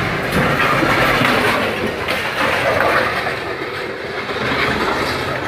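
A heavy vehicle rumbling and rattling loudly, fading slightly in the second half.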